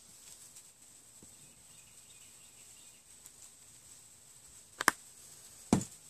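Quiet handling of a plastic coffee-creamer canister, then two sharp clacks near the end, a little under a second apart, as the canister is closed and set down on a table.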